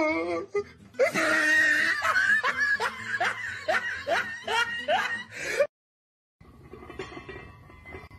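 A person laughing hard in a long string of short, rising bursts, about three a second. The laughter cuts off abruptly after about five and a half seconds, and a fainter steady background follows.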